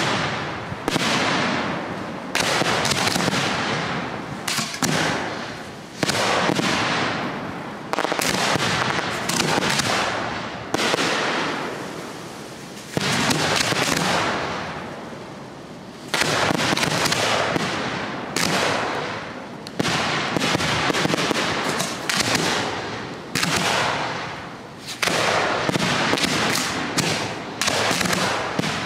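Aerial firework shells bursting one after another, a sharp bang every second or two, each trailing off as it echoes. There is a short lull a little past halfway before the bursts pick up again.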